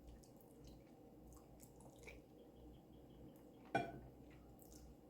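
Faint chewing and small mouth clicks of someone eating, with one sharp click a little under four seconds in.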